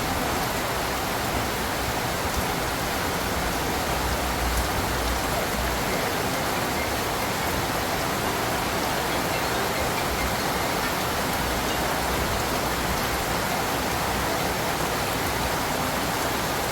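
Steady rain falling: an even, unbroken hiss with no separate drips or knocks standing out.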